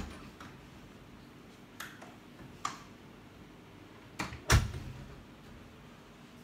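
A wooden door being opened and shut: a knock at the start, two light clicks of the latch or handle, then a double thud of the door closing a little past four seconds in, the second thud the loudest.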